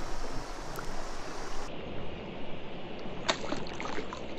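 A smallmouth bass released back into the river with a short sharp splash about three seconds in, over a steady hiss of outdoor noise.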